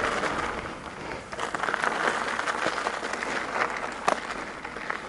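Mountain bike rolling along a dirt trail: a steady crackling rush of tyres on the ground, with scattered clicks and rattles.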